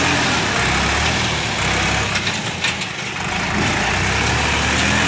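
Sonalika DI-50 tractor's diesel engine running steadily as it pulls a trailer through soft sand, with a few short rattles and a slight dip in engine level about halfway through.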